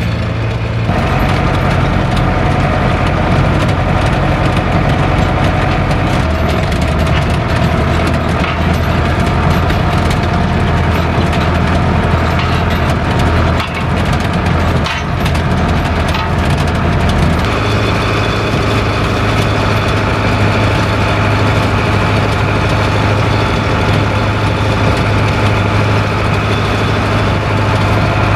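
International 844S tractor's diesel engine running steadily, heard from the cab, its note changing abruptly a few times. A fast crackling rattle runs through the middle stretch.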